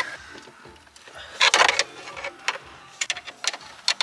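Scattered sharp clicks and knocks, with a brief scraping rustle about a second and a half in.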